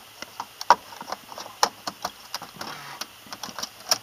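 A string of irregular sharp clicks and knocks, several a second, with the loudest just under a second in, another about a second later and one near the end.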